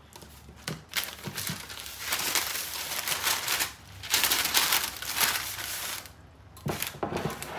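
A large sheet of paper being folded and crumpled up on a kitchen counter, in two long rustling spells, followed by a few light knocks near the end.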